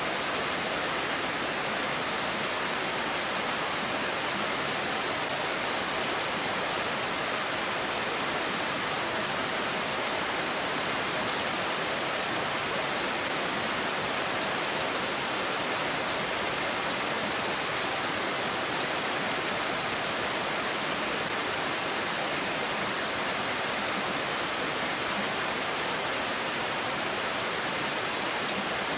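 Steady rain falling, an even unbroken hiss with no separate drops or gusts standing out.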